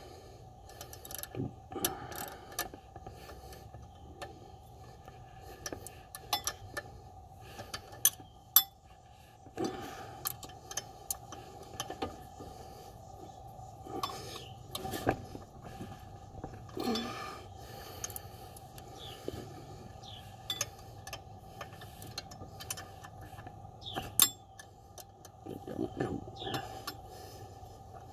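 Ratchet wrench and hand tools working bolts in a car's engine bay: irregular metal clicks, clinks and small knocks against engine parts, with short pauses between.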